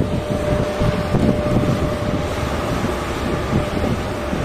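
EP1M electric locomotive hauling a passenger train into the station: a steady whine over a low rumble of wheels on rail.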